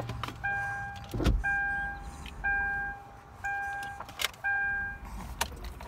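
A car's warning chime dinging steadily, one note about once a second. A dull thump comes just over a second in, with a few light clicks from handling.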